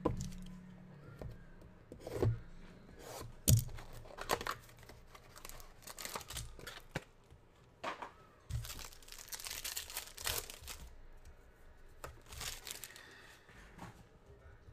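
Foil wrapper of a Panini Prizm football card pack being torn open and crinkled, with a few sharp knocks from handling the pack early on.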